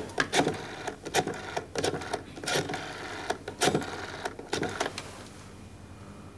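Telephone being dialled on its rotary dial: about seven short clicking whirrs as the dial is wound and runs back, stopping about five seconds in.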